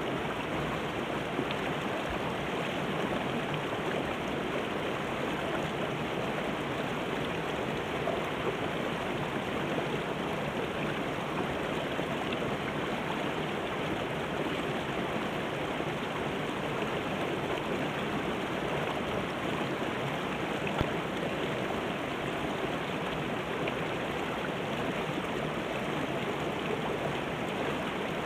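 Shallow river rushing over rocks and small rapids, a steady, even splashing rush of water.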